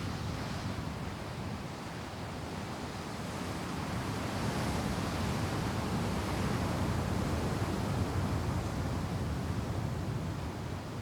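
Ocean surf washing ashore: a steady rush of waves that swells about three seconds in and eases slightly near the end.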